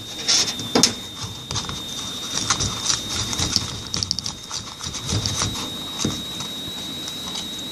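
Slime-making supplies being handled and rummaged on a table: irregular light clicks, taps and knocks of plastic bottles, lids and utensils. A steady high-pitched whine sounds underneath.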